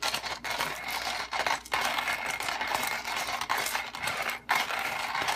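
Stainless steel hand-cranked burr coffee grinder crushing coffee beans at a coarse setting: a continuous crunching, crackling grind with a few brief breaks in the cranking.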